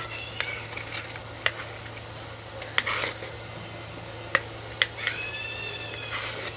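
Scattered clicks and light knocks of a spoon against a small plastic container while slime is mixed, with a short high-pitched tone about five seconds in.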